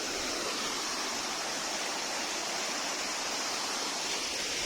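Flowing water, a steady unbroken rush with a high hiss.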